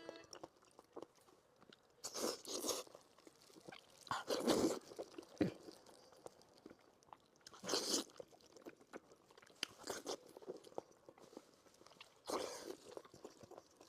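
Close-miked chewing and biting of braised pork belly in spicy sauce, in about five bursts a couple of seconds apart.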